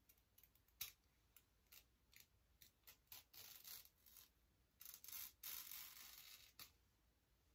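Small scissors snipping through the lace of a synthetic lace-front wig along the hairline: a run of short, quiet snips, with two longer stretches of cutting and lace rustle around the middle.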